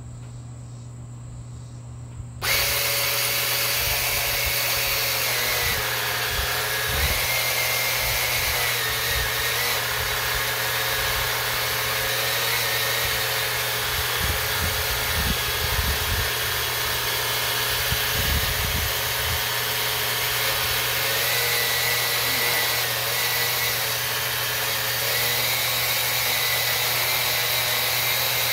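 Battery-powered oil extractor pump switched on about two seconds in, its electric motor then running steadily with a slightly wavering whine.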